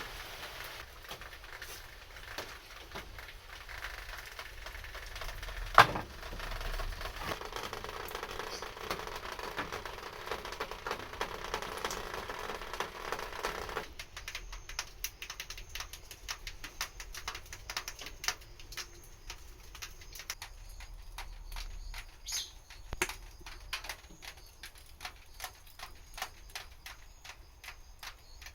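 Wood fire crackling in a homemade pail-can wood stove: a steady run of small snaps and pops, with one loud pop about six seconds in.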